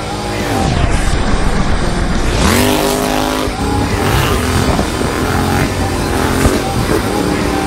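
Yamaha XSR700's 689 cc parallel-twin engine revving hard under full throttle. The pitch drops in the first second, climbs steeply again about two and a half seconds in, then keeps rising and falling with the throttle and gear changes.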